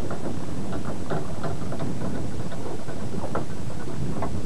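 Small boat on the water: a steady low rumble with frequent short, irregular knocks and slaps against the hull.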